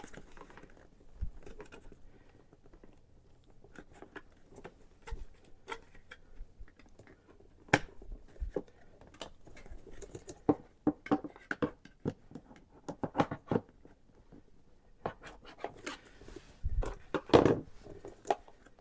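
Screwdriver prying at the plastic retaining tabs of a car door's power-window master switch: irregular plastic clicks, taps and scrapes, with a louder cluster of knocks near the end.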